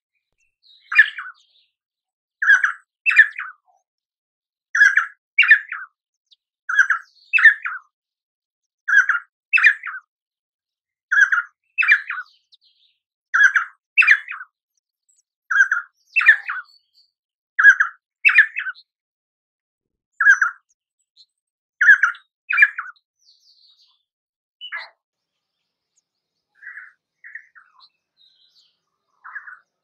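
Painted spurfowl calling: a repeated two-note phrase, about one pair every two seconds, then a few weaker, scattered notes near the end.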